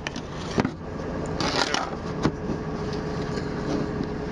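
Handling noise from setting up the recording inside a truck cab: a few sharp clicks and a brief rustle, over a steady low rumble through the open window.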